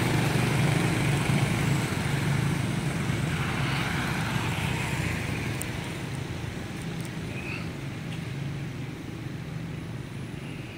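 Low, steady engine hum of a motor vehicle that slowly fades as it moves away.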